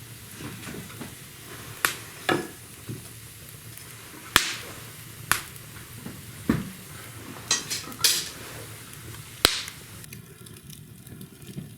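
Wood fire burning in an open brick fireplace: sharp crackling pops every second or so over a steady hiss.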